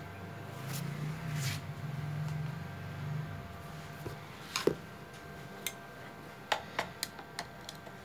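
Scattered light clicks and knocks of metal parts being handled on an old hand-crank sewing machine, the loudest a sharp knock with a short ring a little before five seconds in, followed by a run of smaller clicks. A low steady hum in the background stops about three seconds in.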